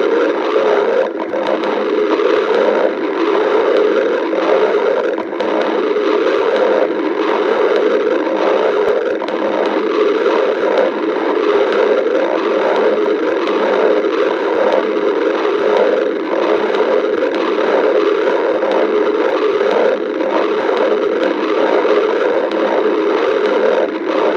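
A stomach growling: a dense, continuous rumbling noise that shifts irregularly without a pause.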